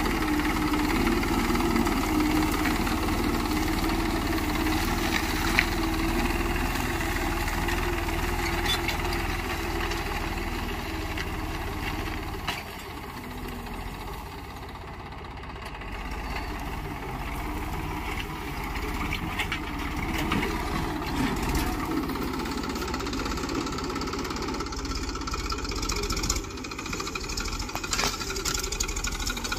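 Massey Ferguson 241 DI tractor's three-cylinder diesel engine running steadily under load as it pulls a disc plough through grassy soil. The sound drops for a few seconds about halfway through, then comes back up.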